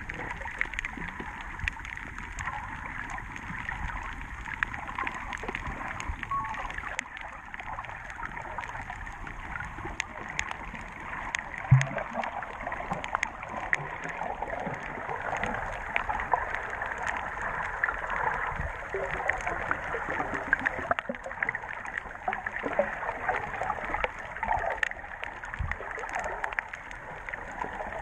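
Underwater sound over a coral reef, heard through a submerged camera microphone: a steady hiss of water with a dense crackle of small clicks, and one louder thump about twelve seconds in.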